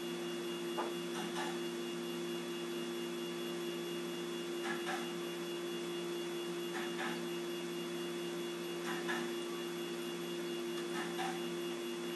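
A steady electrical hum of several low, fixed tones, with a few faint soft clicks and rustles from handling a broken stud in a stud extractor.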